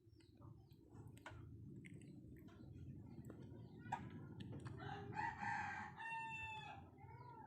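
A rooster crowing once, one long call of about three seconds that begins about halfway through and drops slightly in pitch at the end, over a steady low rumble and faint ticking.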